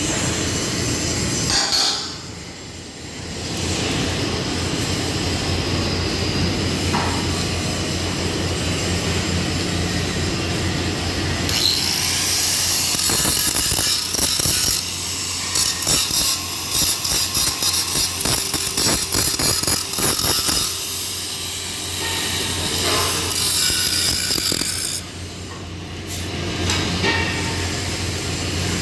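Metalworking noise from welding work: a steady low hum, with a long stretch of dense crackling and rapid knocking through the middle.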